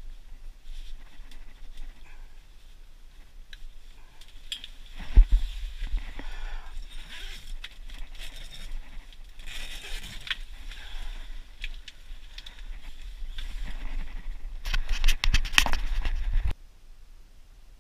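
Rustling and scraping of clothing and gear handled close to the microphone, with scattered clicks and a sharp knock about five seconds in. Near the end there is a louder stretch of rapid clicking and rustling that cuts off suddenly.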